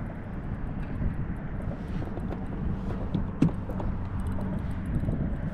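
Low steady rumble of wind and water on a kayak, with a faint steady hum under it and scattered light clicks; one sharper click about three and a half seconds in.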